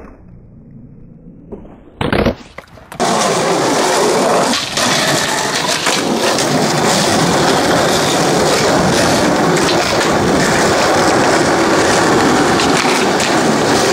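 Skateboard wheels rolling over paving slabs close to the microphone: a loud, steady rolling noise from about three seconds in, with small ticks from the slab joints. Before that, two sharp knocks of the board, one at the start and one about two seconds in.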